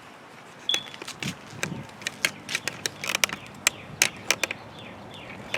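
Irregular sharp clicks and clacks of small hard objects being handled, several a second at times, as the tyre pump and valve are being set up.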